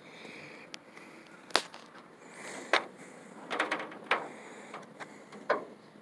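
About six sharp taps and clicks at irregular intervals over a faint steady outdoor hiss: walking and handling noise.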